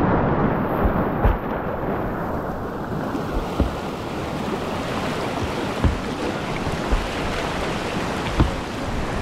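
Rushing water of a river rapid, a steady loud wash, with about six short dull knocks scattered through it.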